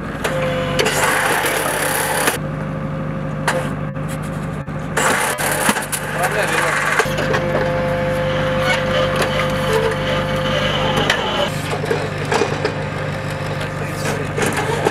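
2S7 Pion 203 mm self-propelled gun with its engine running steadily and a constant whine, under repeated metallic clanks and knocks from the shell-loading equipment.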